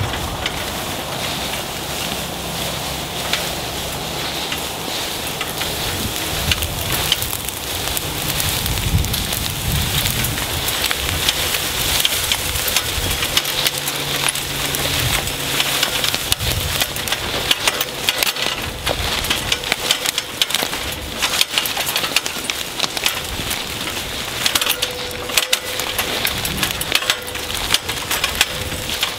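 Footsteps crunching through dry fallen leaves, with a metal ladder tree stand rattling and clanking as it is wheeled and dragged along.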